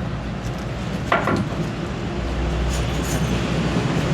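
Steady background noise with a low rumble starting about two seconds in, and a few faint light clinks near the end.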